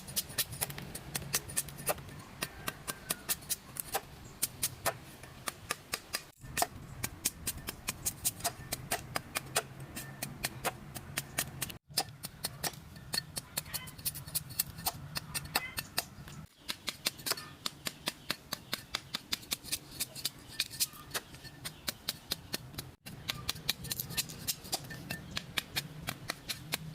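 Hammer striking metal in fast, even blows, about three to four a second, as a blade is forged, over a steady low hum.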